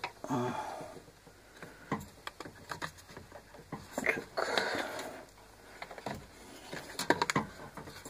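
Handling of a washing machine's plastic control-module housing while its snap latches are felt for: scattered clicks and taps of plastic, a quick cluster of them about seven seconds in, and two longer rustling noises, one about half a second in and one around four seconds in.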